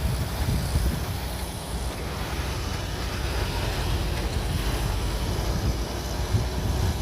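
Shantui DH17C3 bulldozer's diesel engine running steadily under a continuous low rumble, with wind buffeting the microphone.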